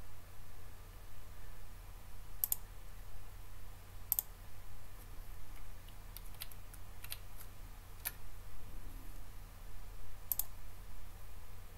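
Sharp, scattered computer mouse and keyboard clicks: single clicks a second or two apart, with a quicker run of clicks around the middle, over a steady low hum.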